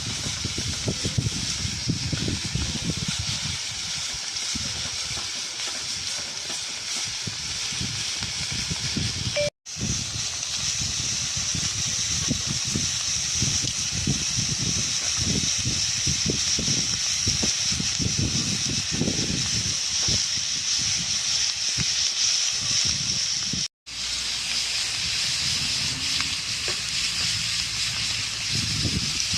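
Meat sizzling and hissing steadily as it fries in a saç pan, cut off briefly twice.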